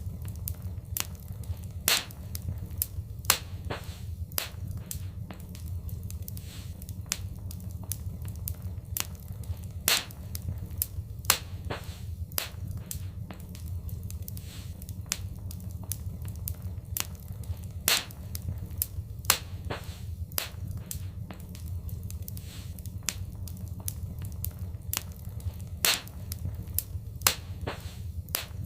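Wood fire in a fireplace crackling, with irregular sharp pops over a steady low rumble; the biggest pops come back about every eight seconds.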